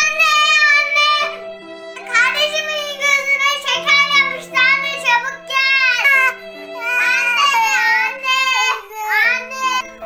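A children's song in Arabic, sung by a young girl's high voice in short phrases over a keyboard backing of held chords.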